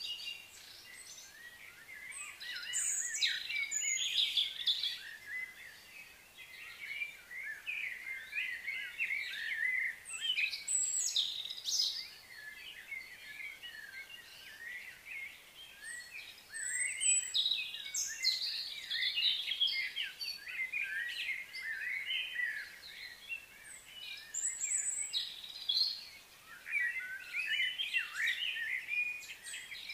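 Several birds chirping and calling, many short overlapping high-pitched calls and trills that come in waves.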